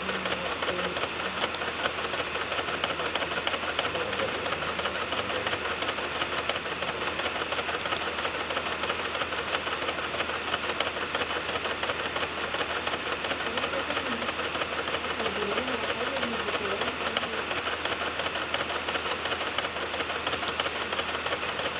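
DVD drive clicking and spinning as it reads program files from the disc, a rapid, even run of clicks over the hum of the spinning disc.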